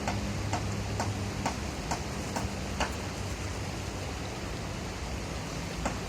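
Steady rush of river water, with sharp clicks about twice a second that stop about three seconds in and come back once near the end.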